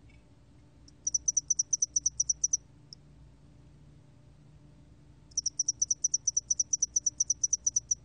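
점날개털귀뚜라미 cricket singing at 21 °C: two trains of rapid, high-pitched pulses, about eight or nine a second. The first runs about a second and a half from about a second in, a single pulse follows, and the second train of about two and a half seconds starts about five seconds in.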